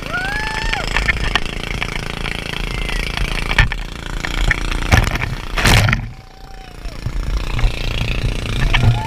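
Wind buffeting a boat-mounted action camera's microphone and sea spray hissing and splashing as a towed inflatable banana boat skims over the waves. A rider gives a brief rising-and-falling whoop near the start, and a loud splash of spray comes about five and a half seconds in, after which the sound briefly drops.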